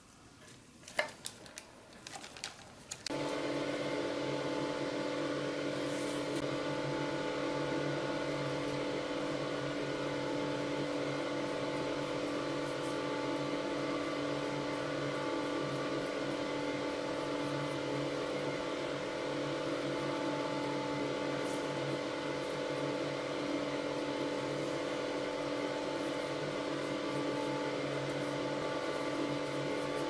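A few light clicks, then an electric machine switches on about three seconds in and runs with a steady, unchanging hum.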